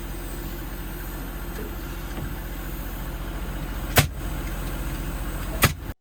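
A motor running steadily, with two sharp cracking impacts about four seconds in and a second and a half later. The sound then cuts off suddenly.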